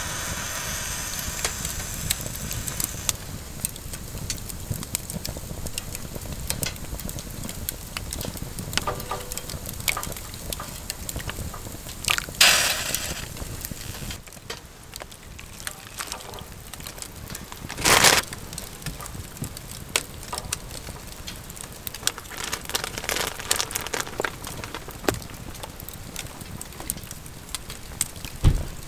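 Wood fire crackling with many small pops and clicks. Two brief louder rushes of noise break in about a third and about two thirds of the way through, and a short low knock comes near the end.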